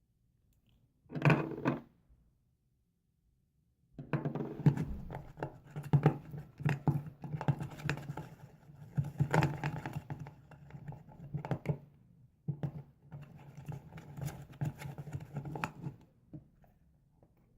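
Slime mixture of PVA glue and colouring being stirred in a container with a utensil: irregular scraping and clicking for about twelve seconds, after a single brief knock about a second in.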